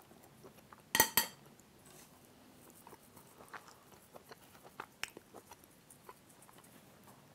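A person chewing a hot spoonful of shepherd's pie, faint, with two sharp clicks about a second in.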